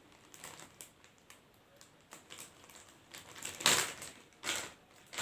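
Kinetic sand packaging being handled and opened: scattered light clicks and rustles, then two louder rustling scrapes near the end.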